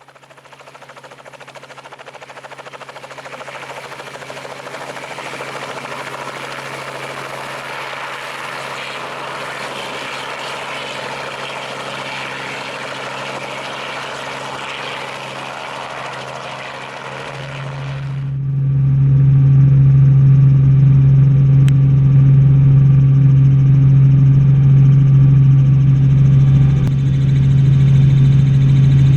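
Helicopter engine and rotor noise: a broad rushing sound over a steady low tone that builds over the first few seconds, then changes suddenly, about eighteen seconds in, to a much louder steady low hum.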